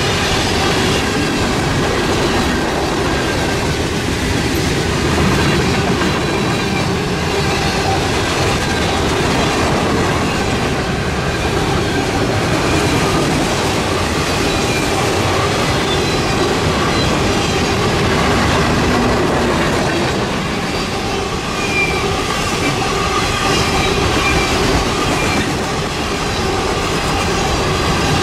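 Freight cars of a long mixed train rolling past close by: a steady rumble and clatter of steel wheels on the rails, with faint thin squealing tones from the wheels now and then.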